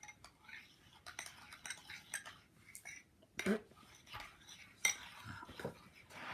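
A spoon stirring and scraping slime around a bowl, with scattered clinks of the spoon against the bowl and a couple of sharper knocks.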